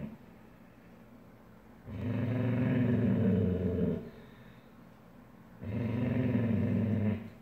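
A Weimaraner growling at the other dog over a shared bed: two long, low growls of about two seconds each, the first about two seconds in and the second near the end, with quiet gaps around them.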